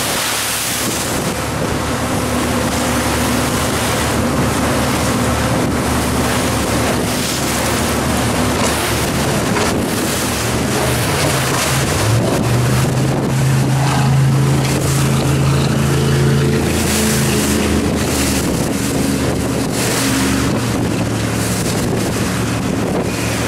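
Speedboat engines running at speed over choppy water, their note shifting pitch a few times and loudest about halfway through, with a constant hiss of spray and waves. Heavy wind buffets the microphone.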